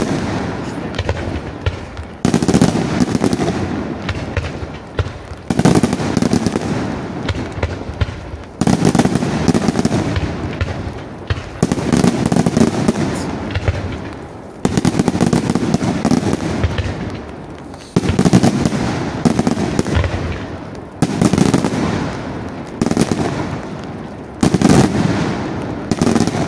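Aerial firework shells bursting in a steady sequence, one loud bang about every three seconds and coming closer together near the end. Each bang fades out in a long rumbling tail.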